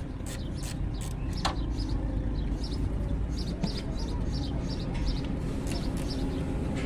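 Wrench ratcheting on a power steering pump bolt: a run of short sharp clicks in the first second or so and again near the end, while the bolt is backed off. Short high bird chirps come in the middle, over a steady low rumble.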